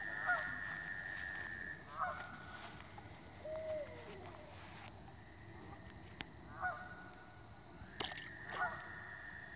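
Frogs calling at night: a long, even trill near the start and again near the end, with short croaks in between.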